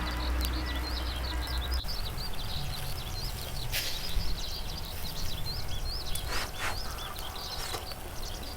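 Small birds chirping steadily in quick, high, repeated notes, with a few sharp clicks in the middle.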